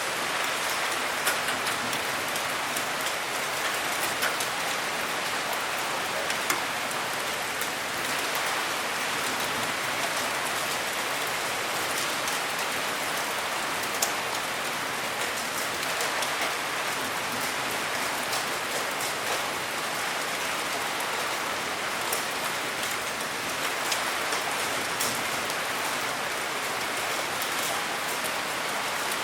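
Steady rain falling, a dense even hiss with many individual drops ticking through it.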